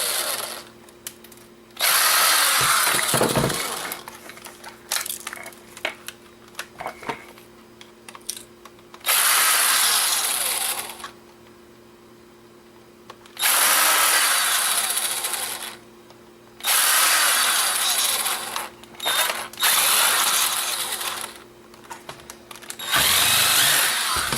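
Electric screwdriver or drill running in about six short bursts of a second or two each, backing out the tiny screws of a small camcorder, with light clicks and taps of the parts between bursts.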